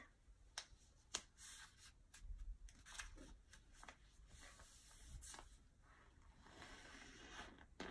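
Faint handling of a sheet of printer paper being folded and its crease pressed down by hand: soft rustling with a few light paper crackles.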